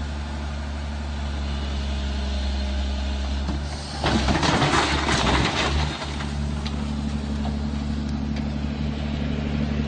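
A heavy machine's engine running steadily. About four seconds in, a loud, rough burst of noise lasts roughly two seconds, then the engine drone carries on.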